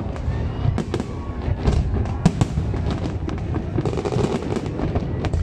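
Aerial fireworks bursting: many sharp bangs in quick, irregular succession over a continuous low rumble.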